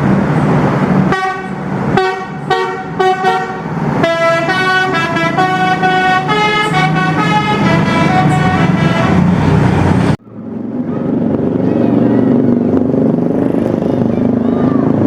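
Basuri telolet musical bus horn playing a quick melody of stepped notes over a running bus engine, starting about a second in and breaking off suddenly at about ten seconds. After that comes a steady low engine drone.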